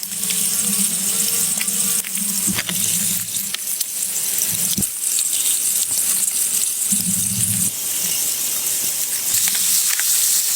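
Steady hiss of running water, with scattered light clicks and knocks. A low steady hum sounds through the first half and briefly again a little past the middle.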